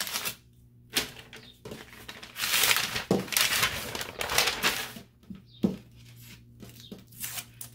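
Paper rustling and crinkling in two bursts as sheets of pressing paper are lifted off a freshly heat-pressed bodysuit, with a few light knocks from handling.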